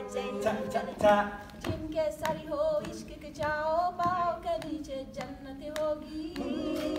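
A cappella vocal ensemble of mixed voices singing in harmony: held, wavering notes over a steady low sustained note, with sharp percussive clicks through it.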